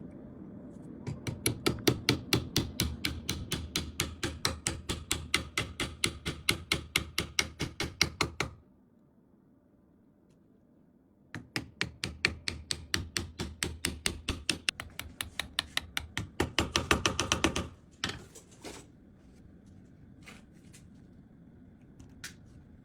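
Rapid, even knocking, about six strokes a second, in two runs of several seconds with a pause between, followed by a few separate knocks.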